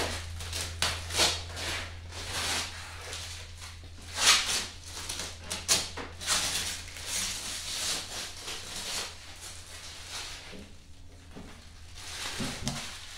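Plastic packaging crinkling and rustling in short, irregular bouts as it is handled, loudest a few seconds in and dying down near the end, over a steady low hum.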